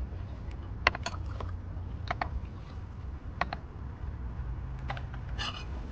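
Sharp clicks and clinks of glass and ceramic teaware being handled on a bamboo tea tray, about six in all, spread unevenly. A brief ringing clink comes near the end, over a low steady rumble.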